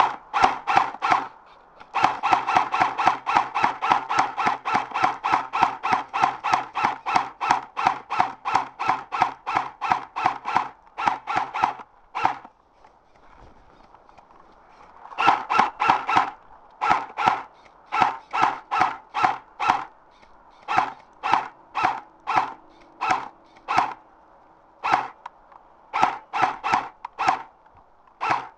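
Boots squeaking and crunching in cold, packed snow: quick, even steps at about four a second for roughly ten seconds, a pause of a few seconds, then slower, uneven steps.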